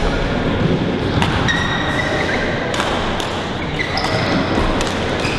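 Badminton rally: rackets striking a shuttlecock in a few sharp hits, with short high squeaks of shoes on the court floor.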